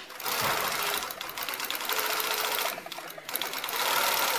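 Tony H 315 off-arm zig-zag walking-foot sewing machine with top and bottom feed, driven by an Efka DC motor, stitching at speed in two runs with a brief slowdown a little under three seconds in.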